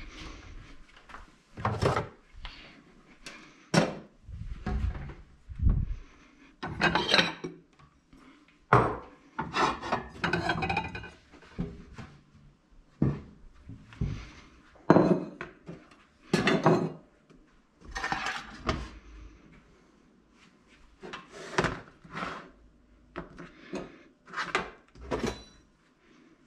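Kitchenware being set out on a countertop: plates, bowls, a metal box grater and a frying pan put down one after another, making irregular clunks, clatters and scrapes.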